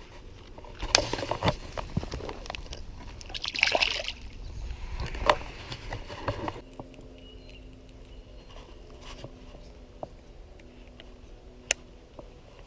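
Water sloshing and splashing, with scattered knocks, for about six seconds; then it drops to a faint steady hum with an isolated click near the end.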